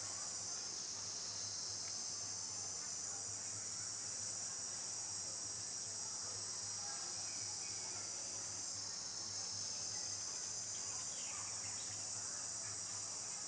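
Steady, high-pitched chorus of insects, an even shrill drone that does not let up.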